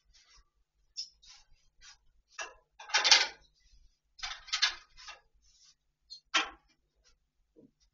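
A run of short, irregular scratchy and scuffing noises as a snooker player moves about the table and handles his cue, the loudest about three seconds in, with a last soft knock near the end.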